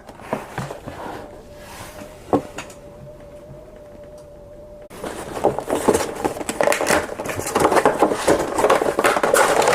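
Plastic and cardboard action-figure packaging being opened by hand: a quiet start with a single click, then from about halfway through a dense, continuous crinkling and crackling as the figure is worked out of its plastic tray.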